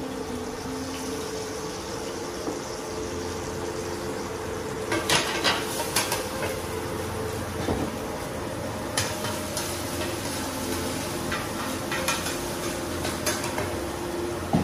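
Beaten eggs sizzling in oil in a large flat pan, with sharp clinks of metal utensils against metal pans and bowls, several in quick succession about five to six seconds in and single ones later.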